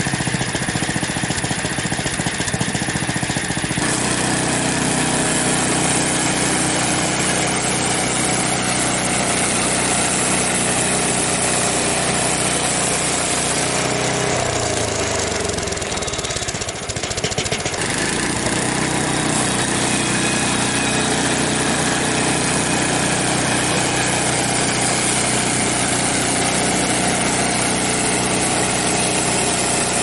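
Frontier OS23 portable band sawmill's small gasoline engine running steadily with its new band blade turning, the blade cutting through a log by the end. The sound changes about four seconds in and dips briefly about halfway, then runs on evenly.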